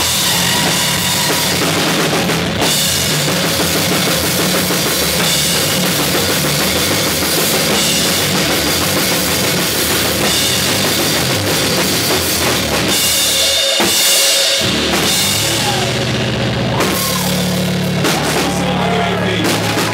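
Live rock band playing loud: electric bass guitar and a drum kit with bass drum and crashing cymbals. The low end drops out for a moment about fourteen seconds in, then comes back with held bass notes and bending pitches over the top.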